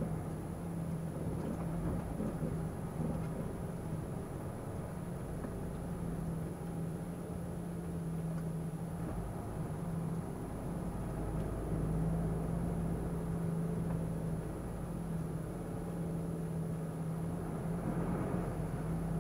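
Diesel engine of a lorry heard from inside the cab as the truck rolls slowly through a parking area, a steady low drone that gets a little louder about twelve seconds in.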